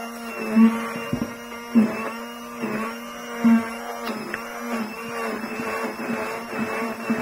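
Hand-held stick (immersion) blender running steadily at one pitch, its blade head churning a stiff lump of hard butter and flour in a glass bowl, with repeated louder bumps as it catches the lumps and the bowl.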